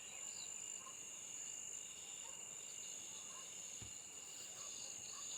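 A chorus of insects such as crickets chirring steadily at several high pitches. There is a brief low bump about four seconds in.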